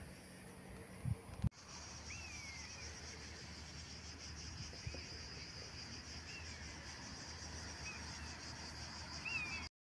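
A few low thumps at the start, then a steady pulsing insect chirr with a bird giving short, falling chirps several times over it. The sound cuts off abruptly near the end.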